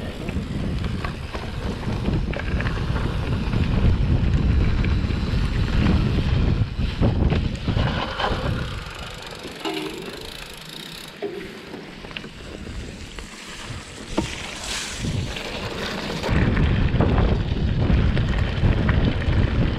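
Wind buffeting a bike-mounted microphone, with the rattles and knocks of a mountain bike riding over rough trail. The wind rumble eases for a few seconds in the middle and comes back abruptly near the end.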